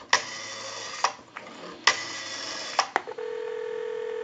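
Rotary dial of a Northern Electric Galion desk telephone spinning back twice after digits are dialed, each return taking about a second. About three seconds in, a steady ringback tone from the off-hook handset begins: the dialed call is ringing through.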